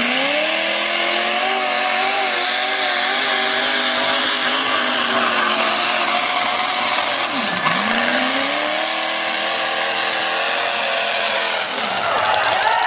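Mud bog truck's engine running at high revs as it drives through a mud pit. The pitch climbs at the start, holds high, drops sharply about seven and a half seconds in, then climbs again.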